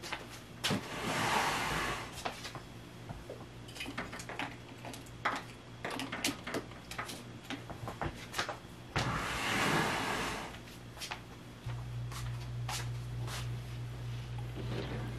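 Blankets and bedding rustling, with scattered light clicks and knocks, as someone moves about on a bed, over a steady low hum that gets louder about twelve seconds in.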